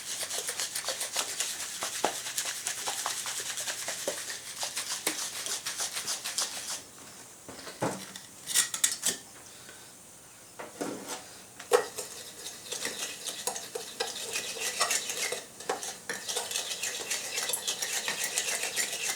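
Wet Satanite refractory mortar being stirred in its container, with a rapid scraping and clinking of the stirrer against the sides. The stirring stops for about five seconds in the middle, broken by a few sharp knocks, then starts again.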